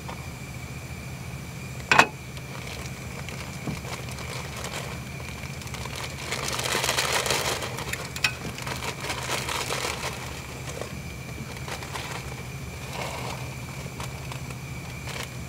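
A metal camping pot's lid clanks once about two seconds in. Then comes a louder stretch of hissing and bubbling as blocks of instant noodles go into water boiling on a canister gas stove, with a second small clink. Near the end there is a softer rustle of a plastic seasoning packet.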